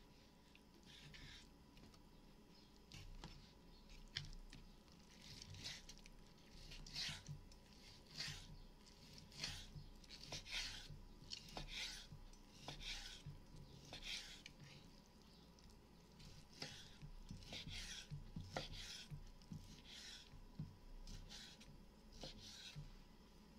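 Kitchen knife slicing raw meat into strips on a bamboo cutting board: faint, repeated scraping strokes about once a second, some with a light tap of the blade on the wood.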